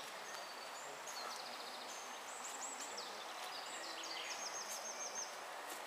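A small songbird singing one long, high-pitched song made of fast trills and rattles, over a steady outdoor hiss.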